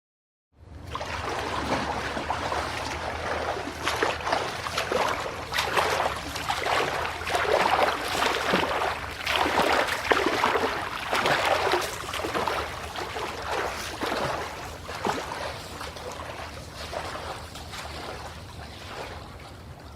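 Swimming strokes splashing and churning water in irregular surges. It starts about half a second in and fades over the last few seconds.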